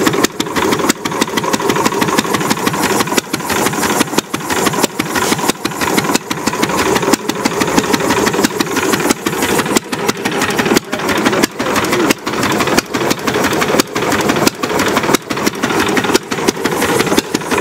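Late-1920s Buda railcar (speeder) engine running unloaded through short open exhaust stubs: a rapid, steady train of sharp exhaust pops, with a few brief dips in loudness.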